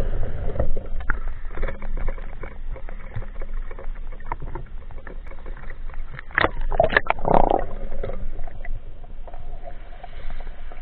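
Water splashing and gurgling around a swimming spearfisher as he swims at the surface and ducks under, with a run of louder splashes about six to seven and a half seconds in.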